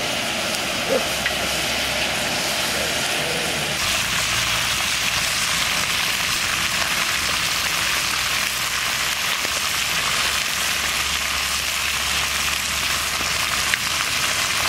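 Whole chickens frying in ghee in a large iron kadai: a steady, dense sizzle, growing a little louder about four seconds in.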